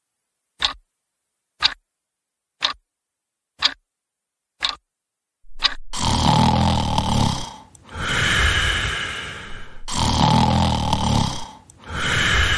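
A clock sound effect ticking about once a second, then from about six seconds in loud snoring, repeated breaths roughly two seconds each.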